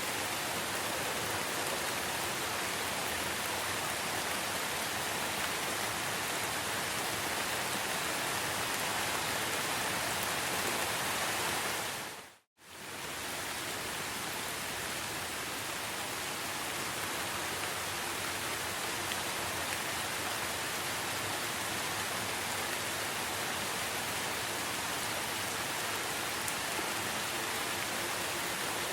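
Steady forest rain, an even hiss of falling drops. About twelve seconds in it fades briefly to silence and swells back.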